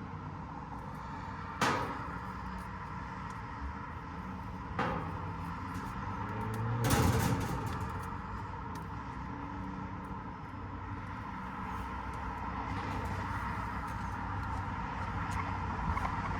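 Steady mechanical drone with short handling knocks about a second and a half and five seconds in, and a louder scrape about seven seconds in.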